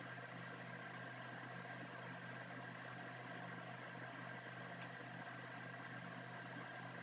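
A steady, quiet electrical hum over a light hiss, with a couple of faint small ticks about five and six seconds in.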